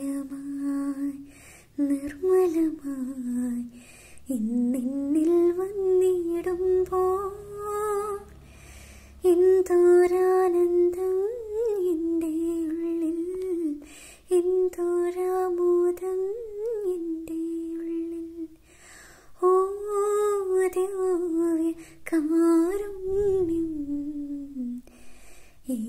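A young woman singing a wordless melody unaccompanied, in phrases of long held notes with small ornamental turns and short pauses between them.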